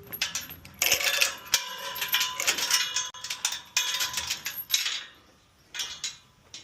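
Metal clanking and rattling: a dense run of quick knocks and clinks, some of them ringing, that stops about five seconds in.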